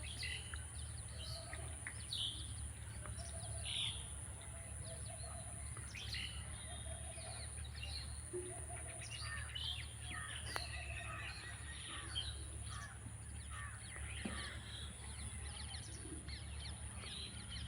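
Wild birds chirping and calling in a wetland: many short, high chirps scattered through, over a steady high-pitched whine and a low background rumble.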